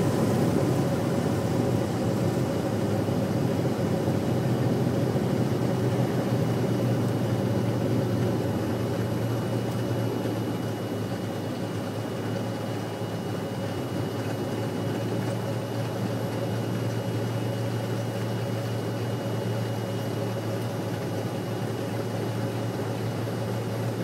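Cirrus SR20's piston engine and propeller running steadily, heard from inside the cabin, easing down slightly about ten seconds in and then holding at a low, even power.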